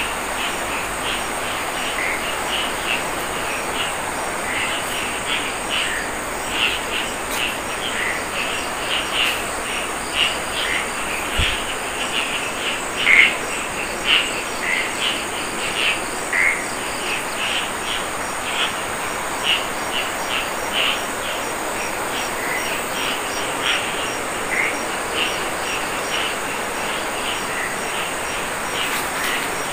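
Night chorus of crickets and other insects: a steady high trill under many short, irregularly spaced chirps. A brief low knock about eleven seconds in.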